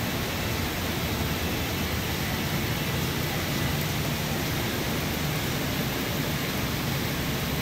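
Steady rush of water churning and splashing into a koi pond, an even hiss with no separate splashes.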